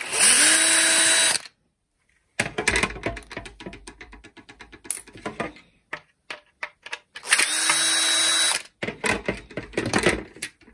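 Cordless drill/driver backing out the self-tapping screws (3×14) from the plastic front cover of a cordless fan. It runs twice for about a second and a half each, once at the start and once about seven seconds in, its pitch rising as the motor spins up. Between the runs come light clicks and knocks as the plastic cover is handled.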